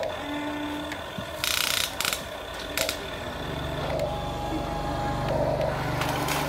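Huina RC toy excavator's small electric motors whining and plastic gearboxes grinding as its boom and bucket move, with a few short scraping rasps. From about three seconds in a steady low motor hum joins as a toy RC dump truck drives up.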